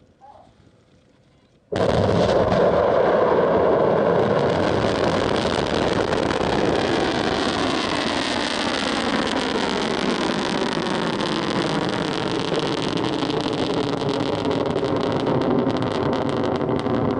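Kuaizhou 11 solid-fuel rocket's motor noise as it lifts off and climbs, a loud, steady rushing noise. It starts suddenly about two seconds in and holds steady.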